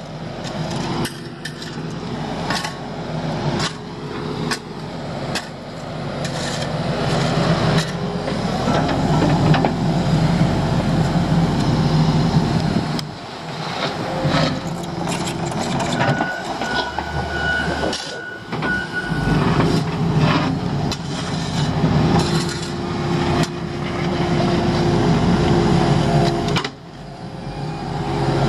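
Diesel engines of a mini excavator and a wheel loader running under load, their note rising and falling with the work. Scattered knocks and scrapes come from a shovel working gravel against a concrete curb.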